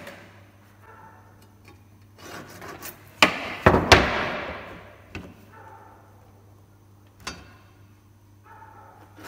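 A steel carpenter's square and a pine strip knocking on a workbench as they are handled, three sharp knocks about three to four seconds in, the last one ringing briefly, and a softer knock later. In between, a pencil scratches faintly along the square, marking the wood.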